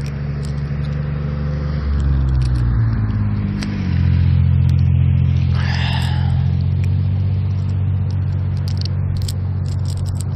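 A boat's engine running steadily close by. Its pitch shifts between about two and four seconds in, then it holds a steady, slightly lower, louder hum.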